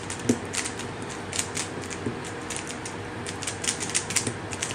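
Rubik's cube being turned quickly by hand: quick, irregular runs of plastic clicks as the layers snap round.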